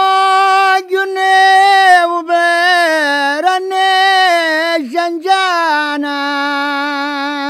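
Unaccompanied solo voice singing a traditional Sicilian carter's song in a high register: long drawn-out notes with small ornaments and brief breaths. About six seconds in, the melody steps down and a final note is held with a slight wavering.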